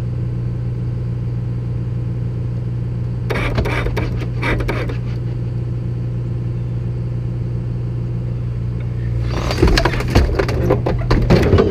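Bucket truck's engine running steadily, driving the hydraulic boom. About three seconds in, and again for the last two seconds, there are bursts of clattering and knocking.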